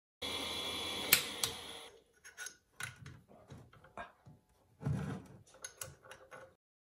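A steady machine hum with two sharp metallic clicks, which fades out after about two seconds. Scattered light clicks and knocks follow, as of small metal parts and tools being handled at a watchmaker's lathe.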